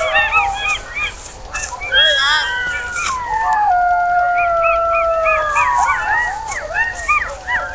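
A chorus of howling canines: many short overlapping yips and wavering cries, with one long drawn-out howl from about two seconds in that drops in pitch partway through and fades out about six seconds in.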